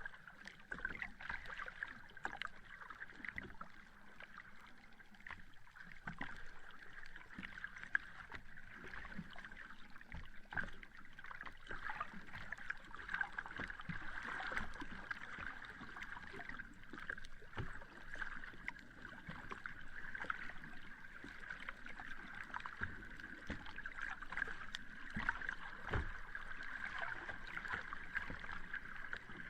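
Sea water lapping and splashing at the shore, many small irregular splashes over a steady hiss.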